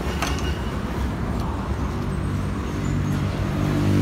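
Small 5 hp GE50 petrol engine running under test, its note settling into a steady, even pitch about halfway through, with a couple of light clicks near the start.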